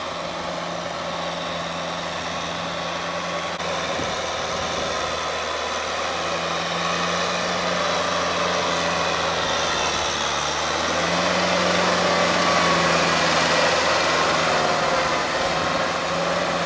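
Kubota M6040SU farm tractor's diesel engine running steadily under load, pulling a Maschio rotary tiller through flooded paddy mud. It gets louder about two-thirds of the way through as the tractor draws near.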